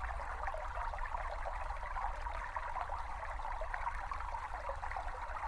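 A small brook babbling and trickling steadily over stones, a field recording of flowing water.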